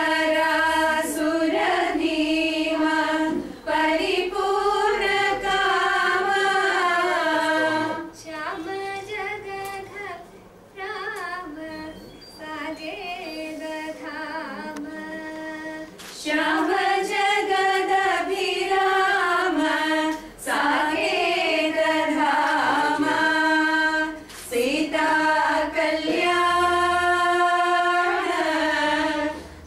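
A group of women singing a song together from song sheets, in long, held, gliding phrases. The singing turns softer for several seconds in the middle, then comes back at full strength.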